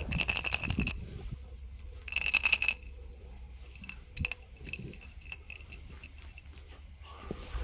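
Berry-shaped candies rattling and clinking inside a glass bottle as it is tilted, in two short bursts about two seconds apart, with a faint ring from the glass, then a few light ticks.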